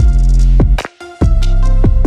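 Background music with a deep bass beat and falling bass notes; it drops out briefly about a second in.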